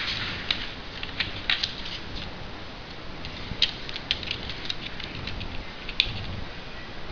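Sheet of foil-backed origami paper being folded and creased by hand: irregular crinkles and sharp ticks, with one crisp crackle near the end, over a steady background hiss.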